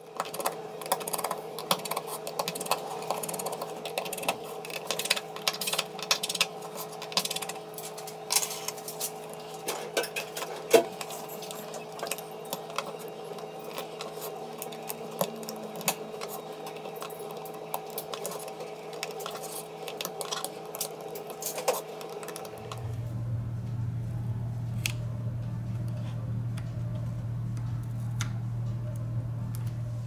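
Small clicks and taps of precision screwdrivers and fingertips working on the opened frame of a Samsung A3 phone, many in quick succession, over a steady hum. About 23 seconds in, the hum changes to a lower, louder drone and the clicks become sparse.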